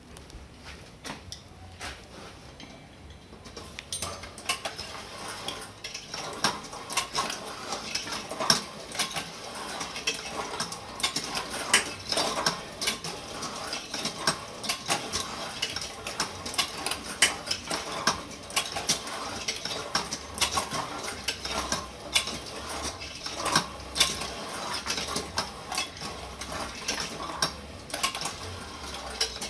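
Homemade briquette press being turned by hand through a bicycle chain and sprockets: dense, irregular metallic clicking and clinking from the chain, sprockets and steel frame, getting busy about four seconds in.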